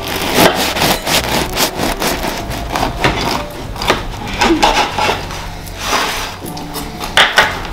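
Knife slicing a loaf of rye sourdough bread: a run of quick, irregular sawing strokes through the crust.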